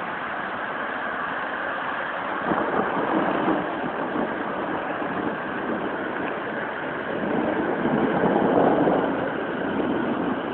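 Rain falling: a steady hiss that swells louder twice, around three seconds in and again around eight seconds.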